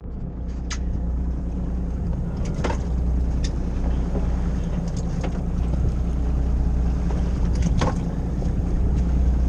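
Fishing boat's engine running steadily, a low drone, with a handful of brief sharp clicks scattered through it.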